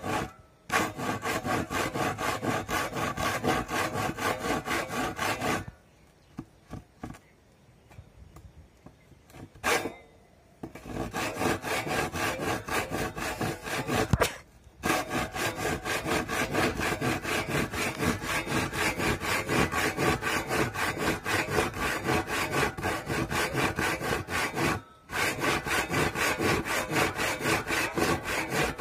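Handsaw cutting across a wooden plank: quick, even rasping strokes in runs of several seconds. The sawing stops for about five seconds near the start and breaks off twice more, briefly.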